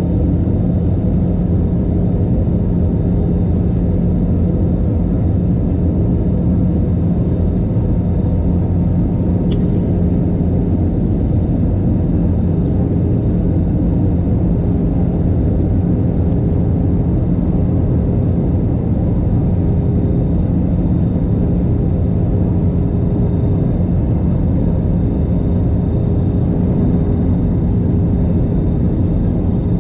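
Steady cabin drone inside an Airbus A320-214 in flight: engine and airflow noise, with a constant low hum and a faint high whine.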